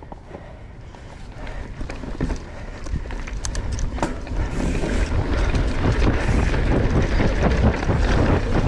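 Mountain bike riding fast down a dirt singletrack: tyres rolling over dirt, with rattles and sharp knocks from bumps, and wind rushing over the microphone. The sound grows louder over the first few seconds as the bike gathers speed, then stays loud.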